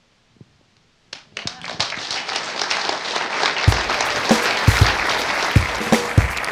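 Audience applause breaks out about a second in and builds to steady clapping. Background music with a regular drum beat comes in a little past the middle.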